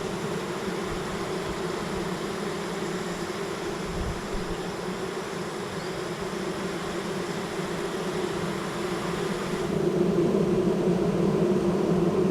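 A honey bee swarm buzzing as a steady, dense hum while it is being installed in a new hive box, growing louder about ten seconds in.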